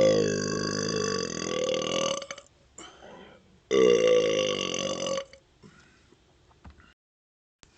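Two long, deep burps from chugged Dr Pepper soda: the first runs on until about two seconds in, and the second starts just before the middle and lasts about a second and a half.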